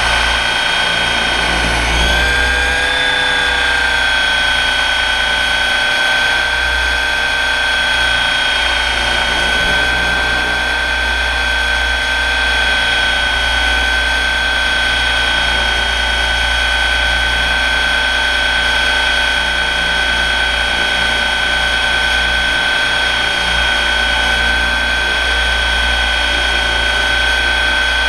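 Align 700E electric RC helicopter heard from its onboard camera: a steady, high-pitched whine from the electric motor and drive gears over rotor noise. The pitch lifts a little about two seconds in.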